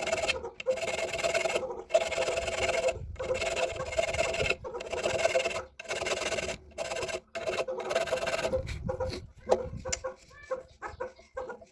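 Repeated rasping strokes of a hand tool working metal, each about a second long with short breaks between, the metal ringing under them; near the end the strokes turn shorter and quicker.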